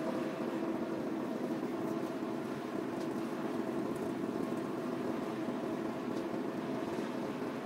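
SLJ900/32 bridge-erecting machine's engine running steadily, an even hum with a couple of steady tones.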